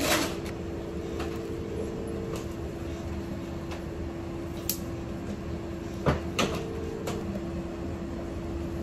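Hemodialysis machine humming with a steady low tone, while plastic bloodline tubing is handled and fitted to it with a few sharp clicks and knocks, most of them about two-thirds of the way in.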